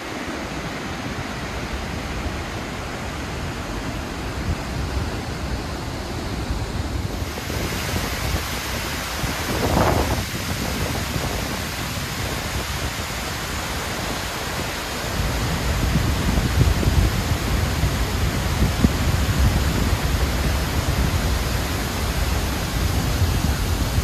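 Steady roar of a large waterfall, a dense hiss of falling water that turns brighter about seven seconds in. From about fifteen seconds in, a gusty low rumble of wind on the microphone joins it.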